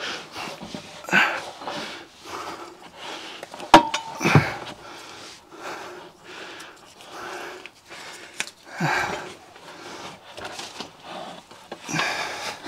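A man grunting and breathing hard with effort as he strains to lift a heavy gearbox overhead while lying under a car, with short forceful grunts every few seconds. A sharp metal clink with a brief ring sounds just before four seconds in.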